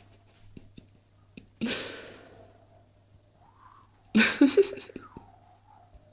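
A man's loud breathy bursts: a sharp exhale about a second and a half in that trails off, then a louder gasping, partly voiced burst about four seconds in.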